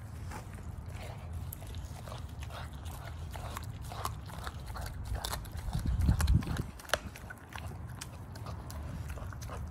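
A pit bull chewing and crunching on a whole raw chicken, a string of sharp cracks and clicks as it bites. A low rumble runs beneath, swelling loudest about six seconds in.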